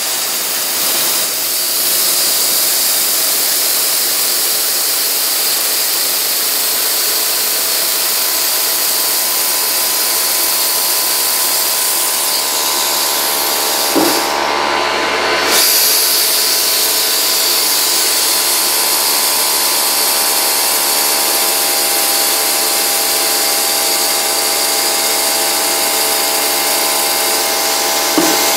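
Compressed air hissing steadily from an air-gun nozzle aimed at a fidget spinner, with an electric air compressor running steadily underneath. About halfway through the air cuts off with a click for about a second, then starts again.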